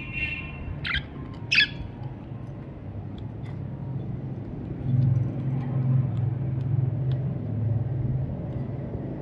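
Budgerigar giving about three short chirps in the first two seconds, over a steady low rumble that swells louder about five seconds in and stays the loudest sound.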